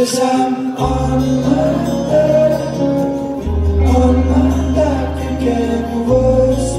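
Live band playing an instrumental passage: ukulele and acoustic guitars strumming and picking a melody, with a bright crash at the start and low bass notes coming in about a second in, changing pitch twice.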